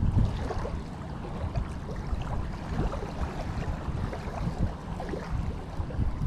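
Wind buffeting the microphone as an uneven low rumble, with faint scattered ticks and rustles over it.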